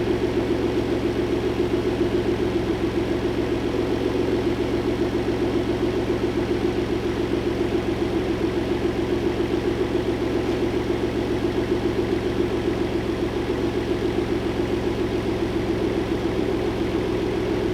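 Freshly installed replacement 3.7-litre V6 in a turbocharged 2015 Ford Mustang idling steadily, burning off assembly residue on its first run and running without rod knock.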